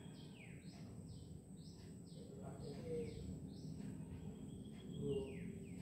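Faint chirping of small birds: a quick series of short chirps, each falling in pitch, two or three a second.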